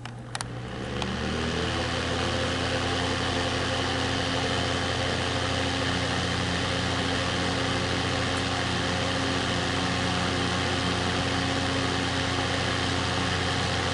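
Electric space heater switched on: a click, then its two-bladed fan motor spins up over about two seconds and settles into a steady run with a hum and a rush of air. The heater is running normally on its low setting.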